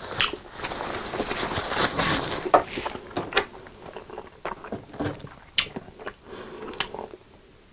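Close-miked chewing of a mouthful of creamy carbonara spaghetti, wet and sticky. In the later half come a few sharp clicks and squelches as a fork spears a pickle. The sounds stop shortly before the end.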